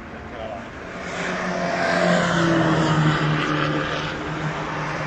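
Car engine at speed on a racetrack, growing louder about a second in and dropping in pitch as it passes, then fading.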